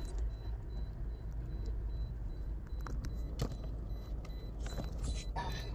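Inside a moving car's cabin: a steady low road-and-engine rumble, with scattered rattles and clicks from the car, the sharpest about three and a half seconds in.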